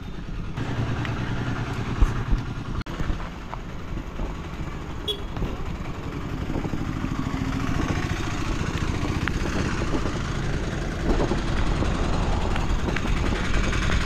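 Small engine of a tuk-tuk (auto-rickshaw) running on the move, with road noise, getting a little louder toward the end; a sharp knock about two seconds in.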